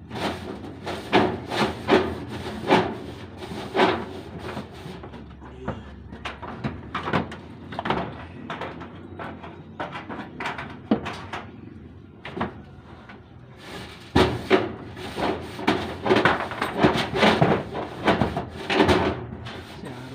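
Corrugated metal roofing sheet clattering and knocking as it is handled and pressed into place on a metal roof. The knocks come in quick irregular runs, busiest near the start and again over the last six seconds, with scattered single knocks between.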